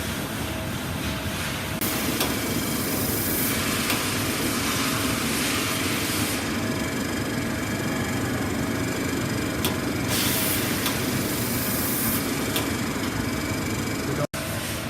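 Dahlih DMV 720 vertical machining centre running: a steady machine hum with a constant faint whine. Twice, stretches of loud hissing switch on and off, once for about four seconds and once for about two seconds.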